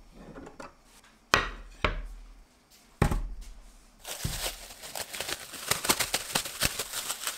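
Three sharp knocks of wood on wood in the first three seconds, then from about four seconds in a dense crackling of plastic cling film being peeled off a block of raw pork.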